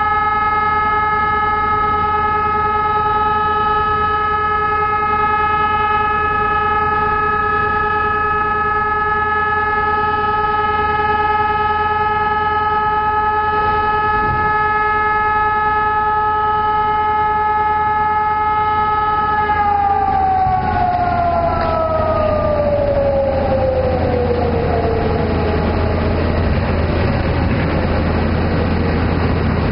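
Civil-defence siren sounding the all-clear (Entwarnung): one steady, unbroken tone, the signal that the danger is over. About two-thirds of the way in, the pitch falls away over several seconds as the siren winds down.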